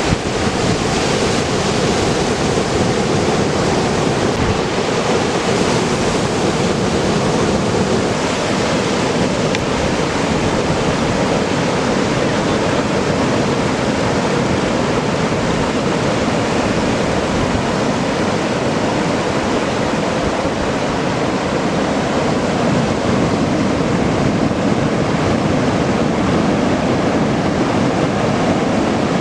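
Ocean surf from a hurricane swell breaking on the beach, heard as a steady rushing noise, with wind on the microphone.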